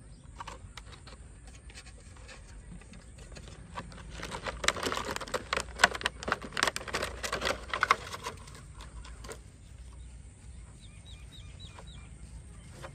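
Crackling and clattering of a plastic-bottle bird trap being handled and opened, a dense run of clicks starting about four seconds in and lasting some four seconds. Near the end come a few faint, short high chirps.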